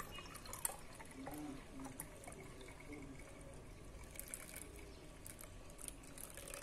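Blended mint-and-water juice poured from a plastic blender jug through a mesh strainer into a glass jar: a faint trickle with small scattered drips.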